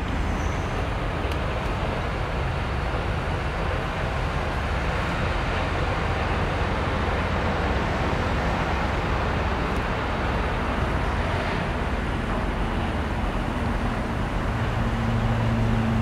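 Steady outdoor background noise: a low rumble and hiss with no distinct events. A low steady hum, like a running engine, joins near the end.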